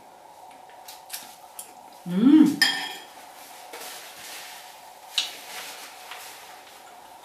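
A spoon clicking lightly against a ceramic soup bowl, then, about two seconds in, a short loud vocal sound from the eater that rises in pitch. A paper napkin rustles after it, and there is one sharp click near the end.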